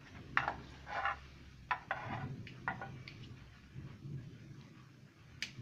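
Light clicks and taps of a hand handling a grape on a small plastic digital kitchen scale, several in the first three seconds and one more near the end, over a low hum.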